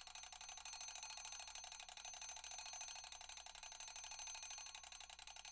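Mechanical alarm clock ringing: its hammer strikes the bell in a rapid, steady rattle, with the bell's tone ringing on above it.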